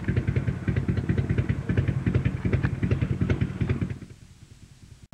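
Motorcycle engine idling with a rapid, uneven beat, fading away about four seconds in.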